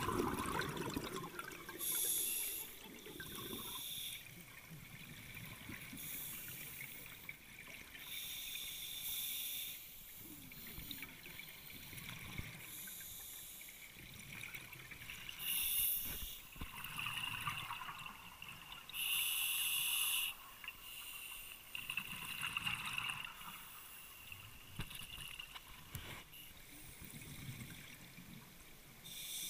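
Scuba regulator exhalations heard underwater: bursts of bubbles every few seconds, with quieter breathing through the regulator between them.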